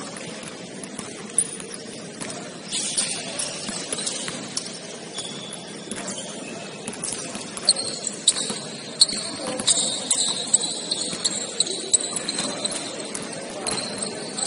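Basketball game in a gym: sneakers squeaking on the court, repeatedly in the second half, and the ball bouncing in sharp knocks, under players' voices.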